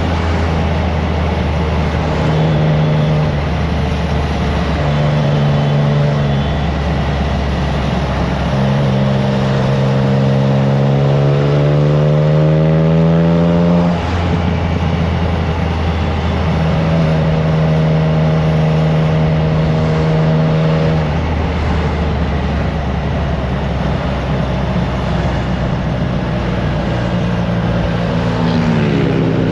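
Triumph Trident 660's inline three-cylinder engine through a FireTong aftermarket exhaust, running at road speed with wind noise on the microphone. The revs hold steady, climb for about five seconds from near ten seconds in, drop abruptly about halfway, then hold steady again and fall off near the end.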